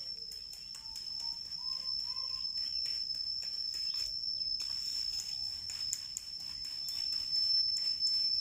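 Leaves and twigs rustling and clicking as a long bamboo pole is pushed and jiggled through a tree's foliage to poke at weaver ant nests. A steady high-pitched whine runs underneath, and there are a few faint chirps.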